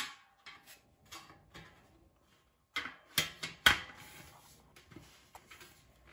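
Steel shelving beam being slotted onto the upright posts: light metal clicks and scrapes, then a few sharp metal clanks with a brief ring about three seconds in, the loudest just after.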